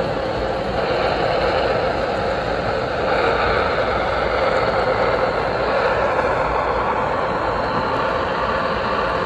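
Model diesel switcher and its flatcars rolling along layout track, a steady, even rumble.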